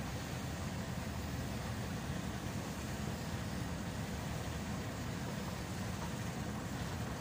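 Steady low rumble and hum of a long descending escalator in an underground subway station, with an even hiss above it.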